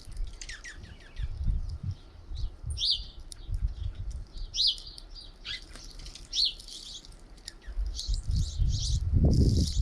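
Small songbirds at a feeder calling with many short, high chirps and squeaky notes. Underneath runs a low, gusty rumble that grows loudest near the end.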